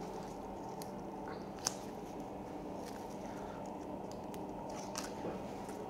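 Faint handling sounds of an AnchorFast endotracheal tube holder as its plastic frame and adhesive cheek pads are pressed onto a training manikin's face: a few small clicks, the sharpest under two seconds in, over a steady low hum.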